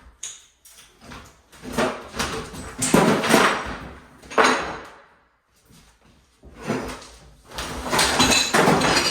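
Garbage disposal being wrenched and knocked at its mount under a kitchen sink: repeated banging and scraping in several bursts, loudest around three seconds in and again near the end, as it is forced loose.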